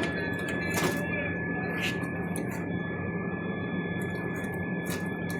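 Steady hissing roar of a gas brazing torch flame working on the air conditioner coil's copper joints, with a few short sharp clicks or taps along the way, over a steady high-pitched whine.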